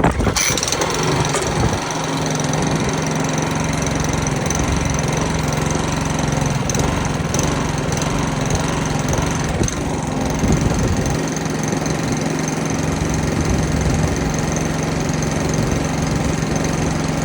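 Petrol lawnmower engine starting up and then running steadily, on a freshly cleaned carburettor. It is being test-run after a fault where it would start but stall after about 30 seconds.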